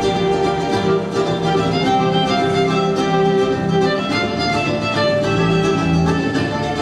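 Instrumental music: a fiddle melody over plucked strings, with a steady beat.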